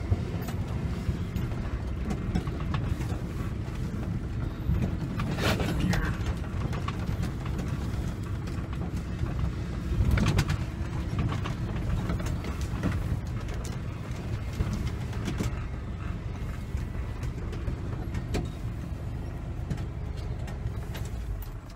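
Vehicle engine running while driving slowly along a rough dirt track, heard from inside the cab, with a few knocks and rattles over bumps. The engine stops at the very end.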